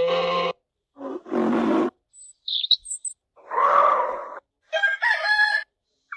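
A string of short recorded animal calls played one after another, each a second or less, pitched and cut off abruptly, with brief silent gaps between them and faint high chirps in the middle.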